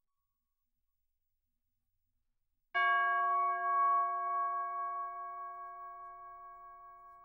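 Near silence, then a little under three seconds in a single bell-like tone from the background music is struck and rings on, slowly fading.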